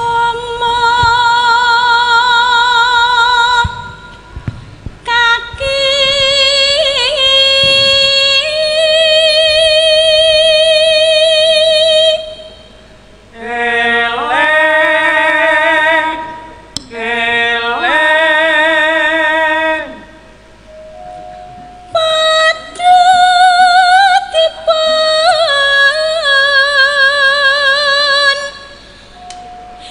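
Javanese sinden (female gamelan singer) singing long melismatic phrases with a wide, fast vibrato, held notes separated by short pauses.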